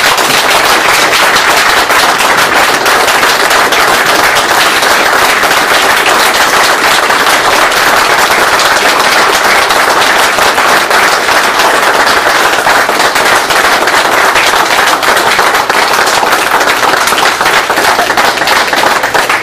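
A room full of people applauding, loud and sustained, with sharp individual hand claps close to the microphone.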